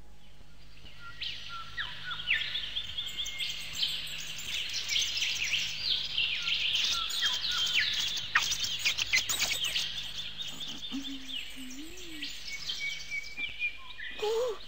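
Many small songbirds chirping and twittering together in a morning chorus, with lots of quick falling whistles, starting about a second in.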